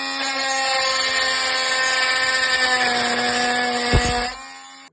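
Oscillating multi-tool with a plunge-cut blade cutting into metal, a loud steady buzz. There is a sharp knock about four seconds in, then the tool winds down and stops.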